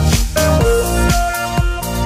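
Background music: an electronic track with held notes over a steady beat, about two beats a second.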